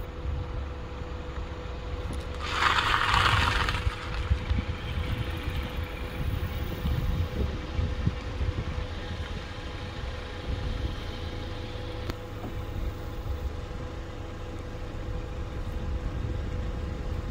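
Car engine running slow or idling, a steady low rumble with a faint steady hum over it. About three seconds in, a brief rush of hiss lasting a second or so is the loudest sound.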